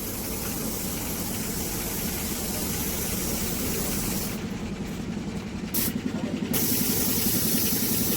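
Compressed-air paint spray gun hissing as the final coat goes onto a car body. The hiss stops a little after four seconds in, gives one short burst, then starts again near the end, over a steady low hum.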